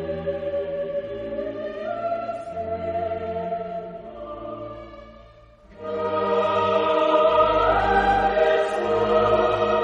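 Choral music: a choir singing long held notes, softer at first and fading out about five seconds in, then coming back louder and fuller with a rising note near the end.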